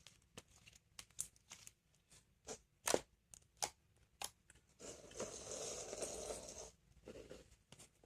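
Homemade slime being stretched and squished by hand: irregular small sticky clicks and pops, with a longer crackly rustle lasting about two seconds from about five seconds in.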